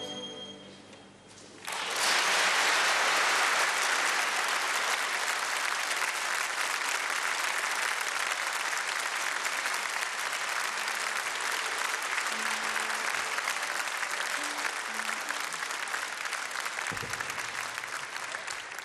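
Audience applauding steadily, starting suddenly about two seconds in after the last music dies away.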